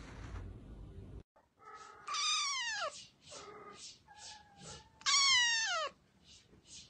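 A kitten meowing: two loud, drawn-out meows about three seconds apart, each sliding down in pitch.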